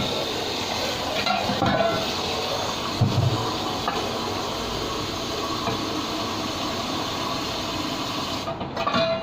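Kitchen tap water running steadily while something is rinsed under it, with a few knocks and clinks of kitchenware. The water stops about eight and a half seconds in.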